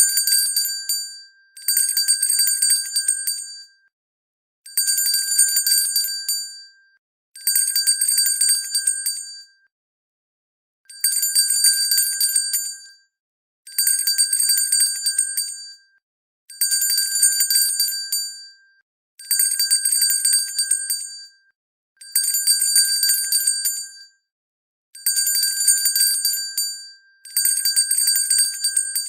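Hand bell shaken in repeated bursts of rapid ringing, the clapper striking many times in each. Each burst lasts about two seconds with a short pause between, about eleven times in a row.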